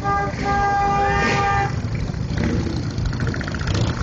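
Motorcycle horn honking once for about a second and a half over the low rumble of several touring motorcycles riding in slowly, with a shorter buzzy beep about three seconds in.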